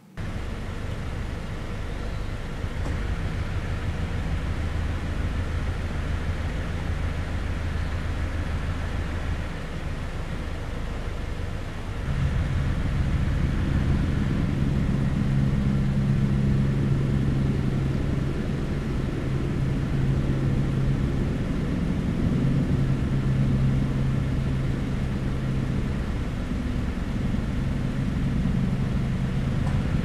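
A steady, low engine drone with an even hum, growing louder about twelve seconds in.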